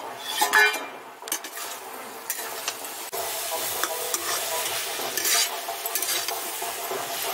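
A metal spatula stirs and scrapes drumstick pieces and masala around an iron kadhai while the masala sizzles as it fries. A few sharp metal clinks come in the first second, and a steadier frying hiss follows from about three seconds in.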